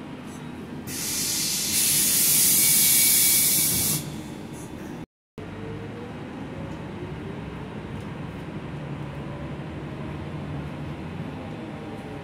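Loud hiss of compressed air let out of a Gillig low-floor city bus's pneumatic system, lasting about three seconds. After a brief cut-out, the bus's engine and drivetrain run with a whine rising in pitch as it pulls away.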